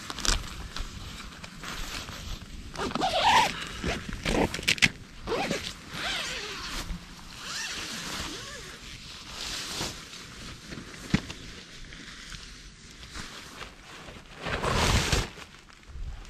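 Tent door zipper being pulled in several quick strokes, with nylon tent fabric rustling.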